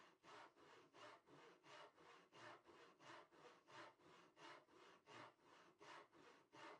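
Hand saw cutting wood in even back-and-forth strokes, about three a second.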